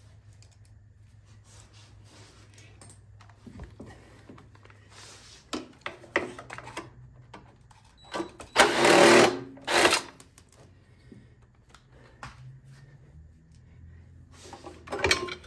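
Power driver running in two short bursts, about eight and nearly ten seconds in, backing out the bolts that hold a generator's recoil starter on. Light clicks and knocks of parts and tools come before and after.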